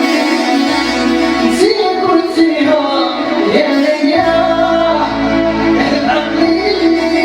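A young man singing over instrumental accompaniment, his voice bending and sliding over a steady held note, with a bass entering about a second in.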